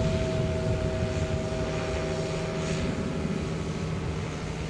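Engine and propeller of a large radio-controlled Udet U 12 Flamingo scale biplane flying overhead: a steady drone that grows slowly fainter.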